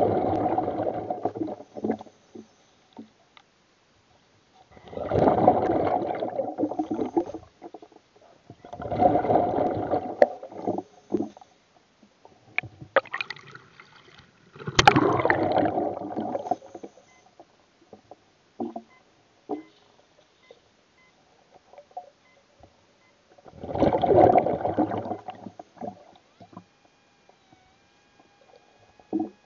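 Air bubbling up through water, heard underwater, in five separate bursts of about two seconds each with quiet gaps between them: the exhaled breath of a scuba diver.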